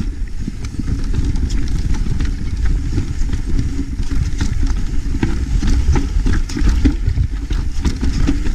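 Mountain bike riding fast down a dirt singletrack: a steady loud rumble with frequent rattles and knocks from the bike over bumps and roots.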